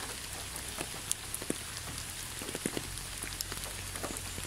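Steady rain recording: an even hiss with scattered single drops clicking, over a low steady rumble.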